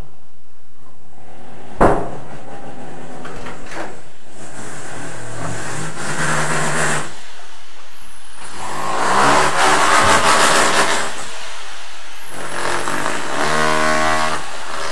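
Rotary hammer (perforator) drilling into concrete elsewhere in the apartment building, carried through the walls as a continuous buzzing drone that swells louder several times, about 9 to 11 seconds in most of all. A single sharp knock sounds about two seconds in.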